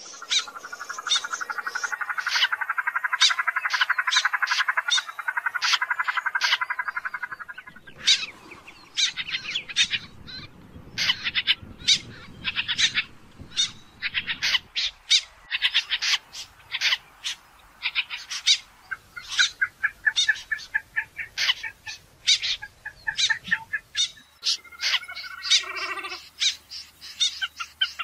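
Snipe calls: many short, sharp call notes in quick, irregular runs, over a buzzy chorus for the first eight seconds or so.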